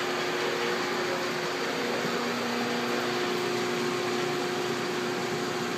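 Steady hum of 35mm projection booth machinery: cooling fans and motors running, with a low hum tone that sits on top. A second, lower hum comes in for about two seconds in the middle.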